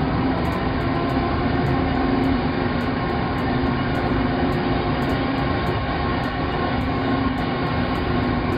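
A heavy vehicle's engine running steadily, with a low hum under an even rumble.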